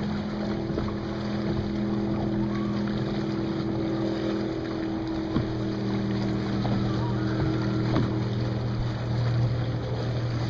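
Boat's electric trolling motor humming steadily, its tone shifting about halfway through, with wind on the microphone.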